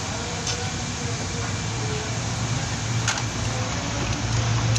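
Steady background machine noise: a constant low hum under an even hiss, with a couple of faint ticks.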